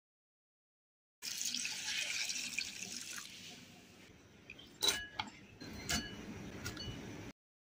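Tap water running into a bowl of shredded raw potato, hissing strongly for about two seconds and then fading. Then a few sharp knocks and clicks of handling, the loudest about five seconds in.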